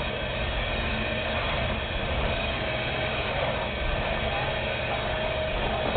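Vacuum cleaner running: a steady drone of motor and airflow noise with a faint held tone.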